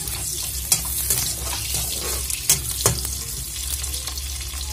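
Onions and dried red chillies sizzling in hot oil in a metal kadai while a perforated metal spatula stirs them, with a few sharp clicks of the spatula against the pan.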